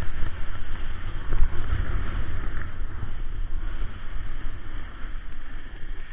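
A snowboard sliding and scraping over packed snow on a fast descent, with wind buffeting the action camera's microphone as a heavy, uneven rumble.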